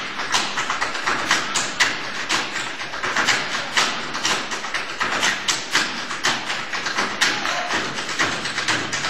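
Tap dancers' work boots striking the stage floor in unison, a quick, steady stream of sharp taps and stamps, several a second.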